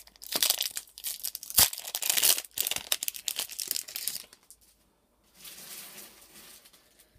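A foil booster-pack wrapper being torn open and crinkled in the hands for about four seconds, with one sharp loud crackle about one and a half seconds in.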